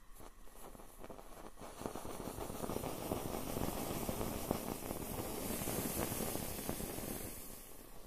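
Skewered marshmallows burning, crackling densely and unevenly, with a hiss that swells in the second half and fades near the end.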